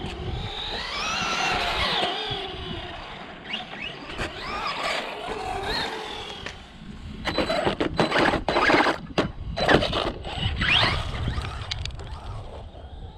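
Brushless motor of a Remo Hobby 1035 M-Maxx 1/10 scale RC monster truck, running on a 3S battery, whining and rising and falling in pitch as the truck accelerates and slows. About halfway through there are a few seconds of loud, uneven clattering and rushing noise from the truck on the tarmac.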